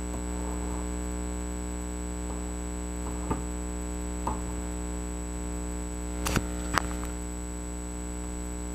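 Steady electrical mains hum, with a few light clicks and taps from small items being handled on a table; the two sharpest clicks come about half a second apart, a little past six seconds in.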